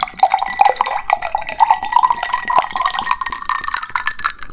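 A drink being poured from a glass bottle into a tall drinking glass, glugging quickly and unevenly, its pitch rising steadily as the glass fills.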